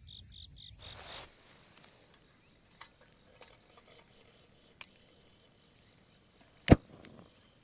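Insects chirping in a fast, even pulse, about five a second, that cuts off about a second in. Then a few faint clicks and one sharp, loud knock near the end.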